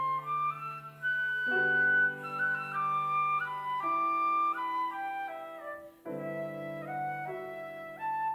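Chamber trio of flute, violin and piano playing a classical piece: the flute carries a stepping melody over sustained piano chords. There is a brief break about six seconds in before the next phrase starts.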